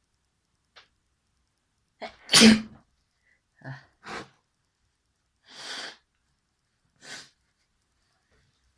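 A person sneezing once, loudly, about two seconds in, followed by four shorter, quieter sounds of breath through the nose or mouth.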